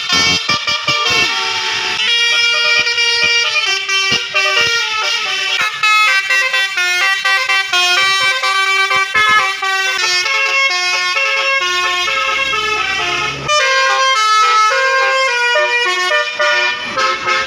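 Telolet Basuri bus air horn playing a quick tune of short stepped notes, loud and continuous.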